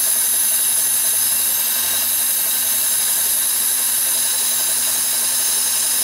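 Steady hiss of compressed air from a blow-gun nozzle clearing chips from an end mill as it cuts stainless damascus, with the manual milling machine's steady low hum underneath.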